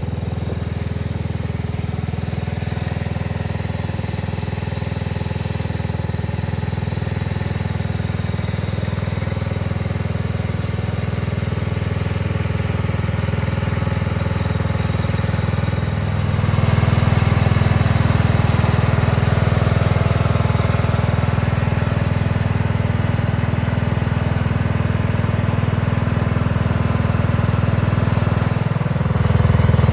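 Riding lawn mower's small engine running steadily as the mower is driven, growing louder about halfway through and again near the end.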